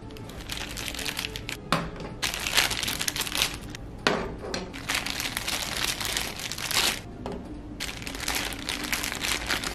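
Plastic packaging bags crinkling and rustling in repeated bursts as toy robot parts are pulled out of their wrappers, with a few sharp knocks of plastic parts.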